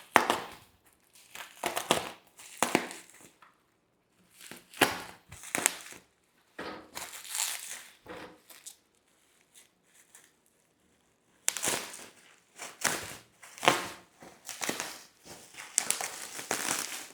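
Packaging crinkling and rustling in irregular bursts as a spine-shaped cable management organizer is unwrapped, with a couple of short pauses.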